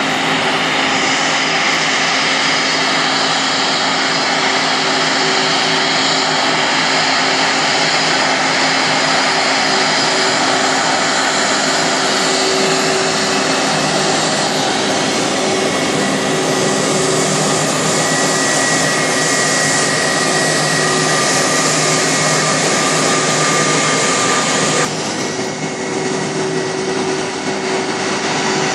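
Airbus A319 jet engines running at taxi thrust: a steady jet rush with a high whine in it. A few seconds before the end the sound drops abruptly and loses some of its hiss.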